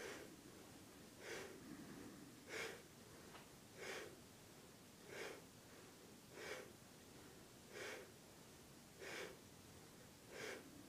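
Faint, even breathing in time with a seated yoga twist from side to side: about nine short breaths, one every second and a quarter, in on the turn one way and out on the turn the other.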